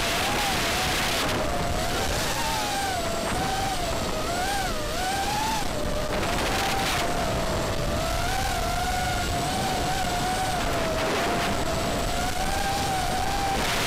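FPV racing quadcopter's electric motors and propellers whining from the onboard camera, with wind rush. The whine's pitch swings up and down with the throttle, then runs steadier in the second half.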